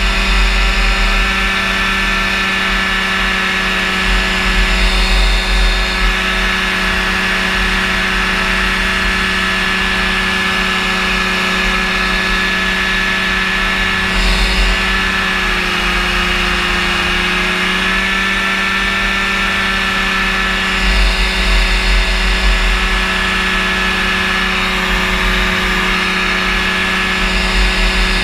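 A powered parachute's Rotax engine and propeller run steadily in flight. The pitch dips briefly about halfway through and then comes back up. Low wind gusts rumble on the microphone now and then.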